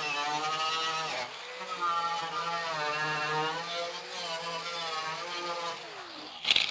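Small handheld rotary tool with a brush head whining at high speed as it strips paint off the steel edge of a car fender, its pitch wavering as it is pressed on and eased off. It dips briefly about a second in, winds down near the end, and is followed by a knock as it is set down.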